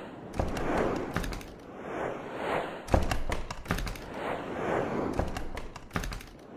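Sound-design transition effects: whooshes that swell and fade every second or two, punctuated by sharp hits with a low thud. The heaviest hit comes about three seconds in.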